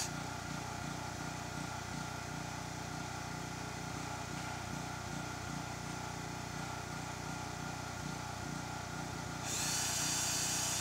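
An engine idling steadily in the background, a low even hum with a faint regular pulse. A hiss joins it near the end.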